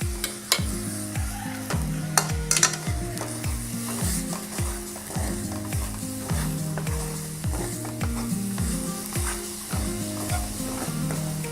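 Cooked toor and chana dal with roasted grated coconut being stirred in a hot pan with a spatula: a steady sizzle with scrapes and clicks of the spatula on the pan, a cluster of them about two seconds in. Under it runs background music with a steady beat of low thumps and held bass notes.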